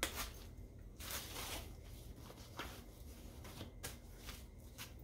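Plastic packaging being handled and crinkled, a string of short rustles and crackles, over a low wind rumble on the microphone.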